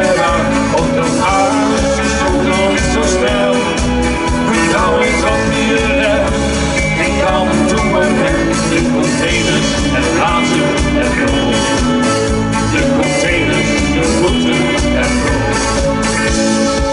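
Upbeat music through a stage PA: a backing track with a steady beat and guitar, with a man singing into a microphone.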